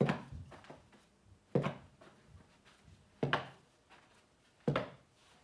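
A baseball smacking into a leather fielding glove four times, about every one and a half seconds, as short-hop ground balls are caught.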